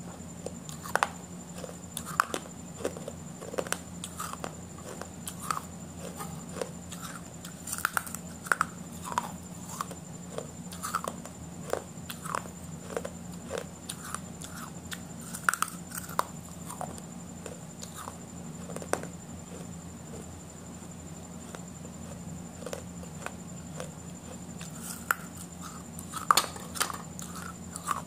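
A person eating a burger and french fries: irregular bites and chewing, with many small crunching clicks scattered throughout.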